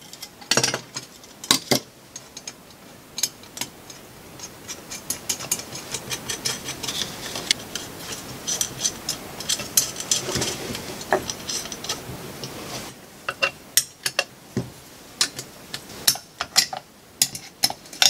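Irregular small metal clicks and clinks as nuts are fitted and tightened on the housing of a variable-geometry turbocharger.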